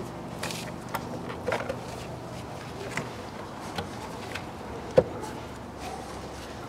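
Scattered light clicks and knocks of plastic as gloved hands fit the air intake duct and press down on the plastic air filter housing, the sharpest knock about five seconds in. A steady low hum runs underneath.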